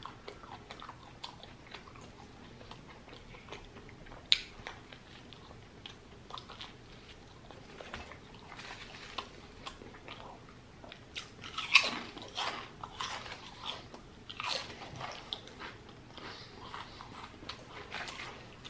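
Close-up chewing and crunching of a cheesesteak sandwich with potato chips tucked inside, many small crackles, with sharp louder crunches about four and twelve seconds in.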